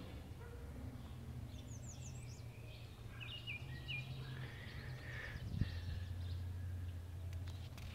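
Outdoor ambience: small birds chirping in short high calls over a steady low hum, with one sharp click about five and a half seconds in.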